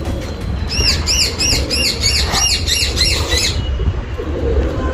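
A bird calling in a quick series of about a dozen short, high chirps, roughly four a second, that stop a little past the middle, over a steady low rumble.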